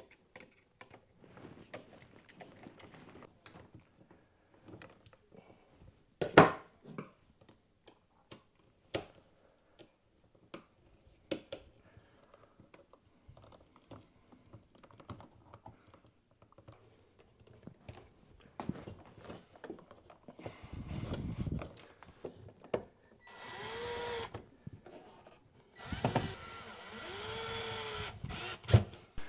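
Clicks and taps of electrical outlets and wiring being handled and fitted into their boxes, with one sharp knock about six seconds in. Near the end a power drill runs in two short bursts, each speeding up and then slowing, driving outlet mounting screws.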